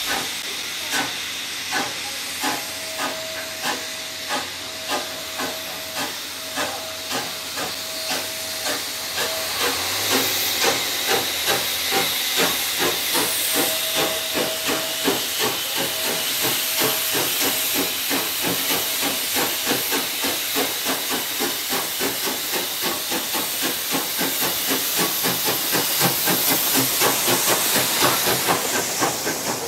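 DSB class F No. 654 0-6-0 steam tank locomotive pulling away with its train: exhaust chuffs start about one a second and quicken steadily to about three a second as it gathers speed, over a steady hiss of steam from the open cylinder drain cocks. It gets louder as it comes close near the end.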